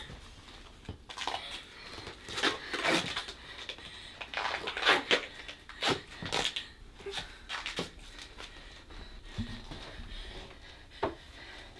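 A scuffle at close quarters: irregular short bursts of rustling and breathing, the loudest about five seconds in.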